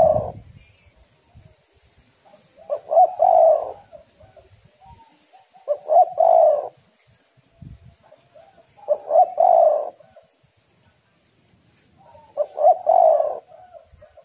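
Female spotted dove cooing: repeated phrases about every three seconds, each a few quick notes running into a longer coo. One phrase is ending at the start and four more follow.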